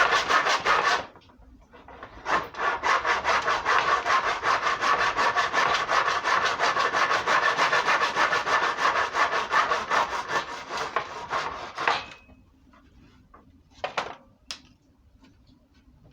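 Hand saw cutting with fast, even back-and-forth strokes. It stops about a second in, starts again, and stops for good near the end, followed by a couple of faint knocks.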